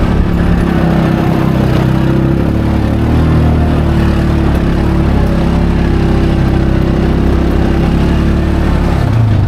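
Off-road side-by-side's engine running steadily as it drives along a dirt trail, its pitch shifting a little as the throttle varies.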